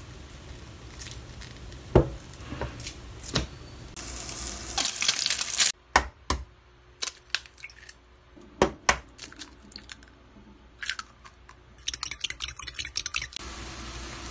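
A run of kitchen food-prep sounds: a knife knocking on a plastic cutting board twice while slicing meatloaf, then a brief hiss, then eggshells cracking and clicking against a bowl. Near the end comes a crackling sizzle of beaten egg frying in a pan.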